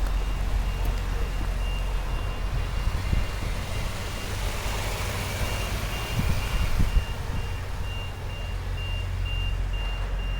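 An ambulance backing in, its reversing alarm sounding a single high beep at even intervals over the low, steady running of its engine.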